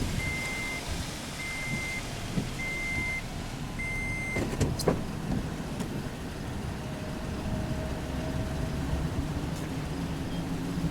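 A car's electronic warning chime beeping four times, evenly about a second apart, followed by a couple of sharp clicks, with the vehicle's engine running in a steady low hum.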